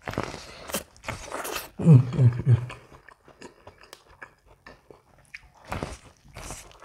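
Biting into and chewing a boiled corn cob: crunching bites of the kernels and many small wet chewing clicks, with a brief hummed voice sound about two seconds in and another bite near the end.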